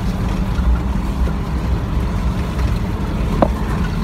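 Large truck's engine running steadily as it drives, heard from inside the cab, a low rumble with road noise. A single short knock sounds about three and a half seconds in.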